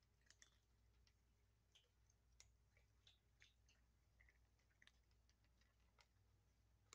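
Kittens crunching dry kibble from plastic bowls: faint, irregular small clicks and crunches, a few a second.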